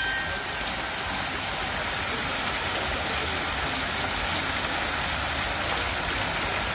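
Stone sculpture fountain, its water spilling and spraying down into a shallow basin, making a steady rushing splash.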